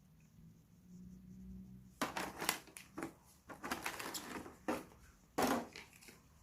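Packaging rustling and crinkling in irregular bursts as items from a microphone kit are handled, starting about two seconds in.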